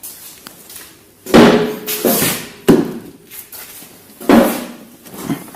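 Three loud bangs, about a second and a half apart, each dying away over about half a second.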